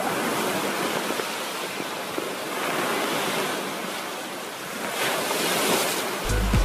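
Steady rushing water, like surf, swelling about five seconds in. Music with a deep bass beat starts near the end.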